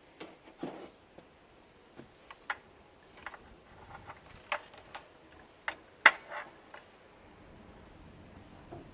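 Irregular sharp clicks and knocks of hard plastic and metal parts being handled while a television is taken apart for scrap, the loudest knock about six seconds in.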